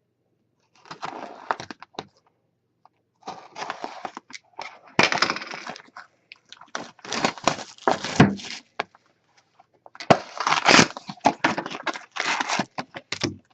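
Sealed hockey card box being opened: plastic shrink wrap and cardboard tearing and crinkling in irregular bursts, with short pauses between handfuls.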